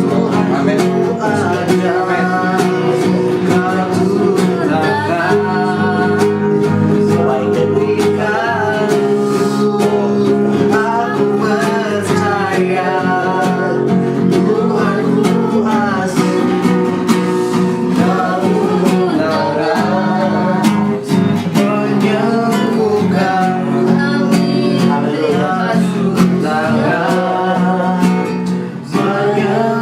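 A song with guitar accompaniment and a singing voice.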